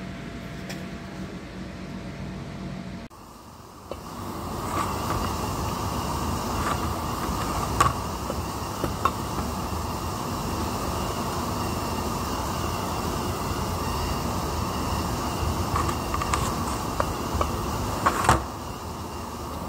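A steady mechanical rumble with a few sharp metallic clicks and knocks as a shaft and bearing are fitted by hand into a gearbox housing.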